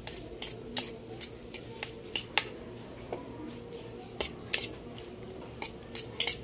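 A metal fork stirring a wet chopped-vegetable salad in a bowl, clicking and scraping against the bowl in quick, irregular taps.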